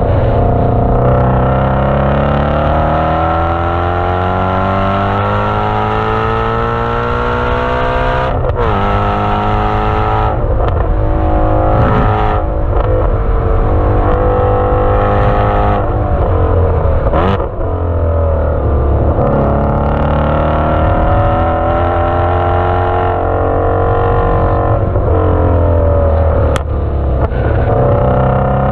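2017 Shelby GT350's 5.2-litre flat-plane-crank V8, heard through an exhaust microphone, pulling hard at full throttle on track. The engine note climbs steadily in pitch, then breaks off and drops several times around gear changes and a lift in the middle. It climbs again for a long pull near the end.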